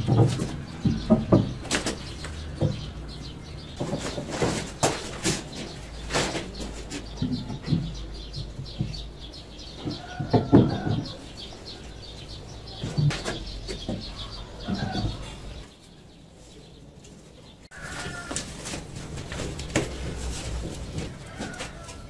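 Irregular knocks and clicks with a few short chirps among them; the sound drops away for a couple of seconds about three-quarters of the way through, then starts again abruptly.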